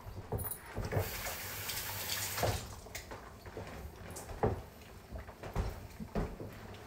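Scattered knocks and clunks of things being handled and set down in a kitchen, with a brief hiss about a second in.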